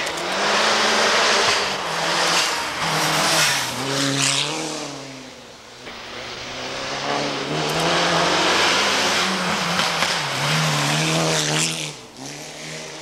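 Rally car engine revving hard through a dirt-road hairpin, its pitch climbing and falling with gear changes over the hiss of tyres on the loose surface. The sound dips about halfway through and builds again before falling away near the end.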